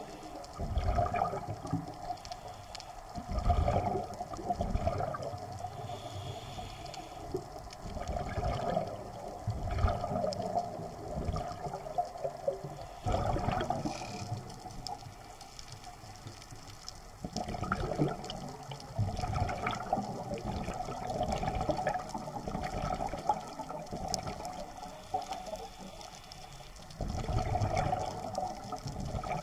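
Scuba diver's regulator breathing underwater: exhaled air bubbling out in loud surges every few seconds, with quieter stretches between breaths, heard muffled through the action camera's housing.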